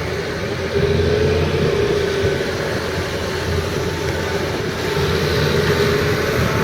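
Hitachi EX300LC-3 excavator's diesel engine running with a steady low drone and a wavering whine above it, growing a little louder about a second in.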